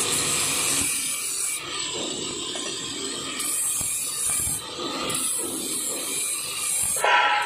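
Handheld angle grinder with a deburring wheel scraping over the teeth of a metal gear, taking the burrs off the cut teeth. A high hiss cuts in and out several times as the wheel goes on and off the work, and there is a louder scrape near the end.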